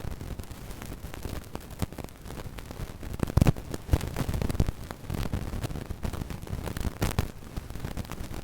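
Radio signal interference static: a constant hiss with irregular crackles and low rumbling pops, the sound of a radio signal breaking up. The louder crackle bursts come about three and a half seconds in and again near seven seconds.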